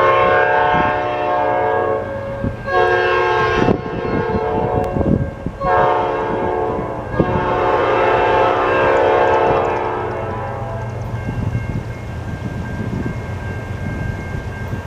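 Air horn of a Canadian National ES44DC diesel-electric locomotive sounding a chord in three blasts, long, short and long, the last held about four seconds and fading away. A steady low diesel rumble from the approaching locomotives runs underneath and carries on after the horn stops.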